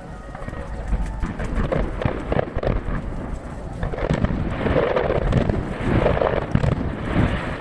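Aerial firework shells bursting in quick, overlapping succession, heard from a distance with echoing booms; the recording plays at triple speed, so the bangs come thick and fast.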